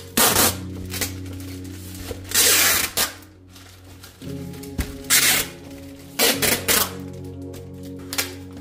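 Packing tape pulled off its roll in several short, loud strips and pressed onto a plastic mailer bag, over background music.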